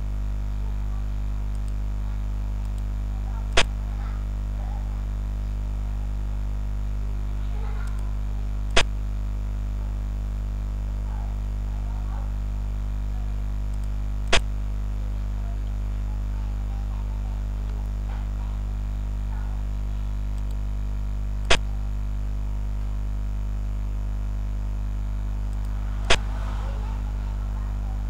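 Five sharp clicks, several seconds apart, of xiangqi pieces being set down on the board in a game replay, over a steady low hum.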